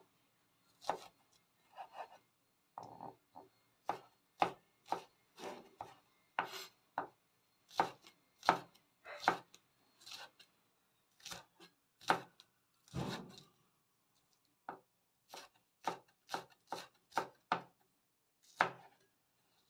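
Kitchen knife cutting leek stalks into thin strips on a wooden cutting board: a run of separate chops, about one or two a second, with short pauses and one heavier, longer stroke about thirteen seconds in.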